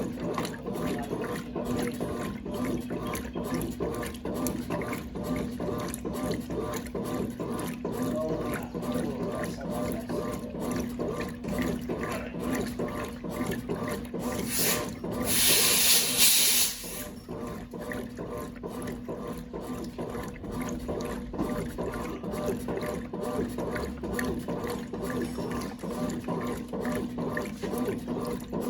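A 1996 Brastemp Clean 5 kg top-loading washing machine running with water, a steady motor hum under a fast, even mechanical rhythm. About halfway through, a louder rushing hiss lasts for about two seconds, then stops abruptly.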